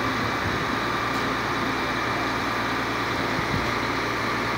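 Diesel engine of a Mercedes-Benz concrete pump truck running steadily with an even, unbroken hum.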